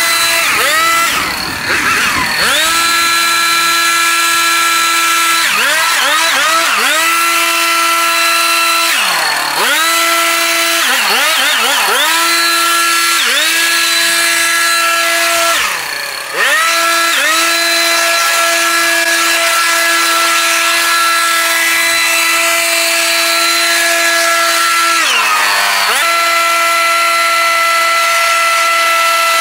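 Small petrol engine running at high speed while cutting very tall, dense grass. Its pitch drops sharply and climbs back several times, with three deep sags about a third of the way in, past the middle and near the end, as the engine bogs under the load and recovers.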